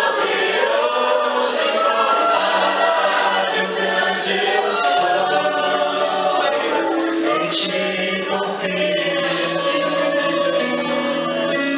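Choir singing a gospel worship song over sustained instrumental chords, the voices gliding between held notes.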